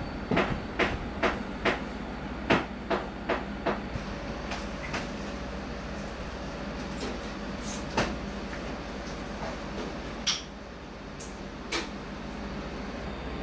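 Restaurant kitchen work: a quick run of sharp knocks, two or three a second, for the first few seconds, then a few scattered clicks, over a steady low hum.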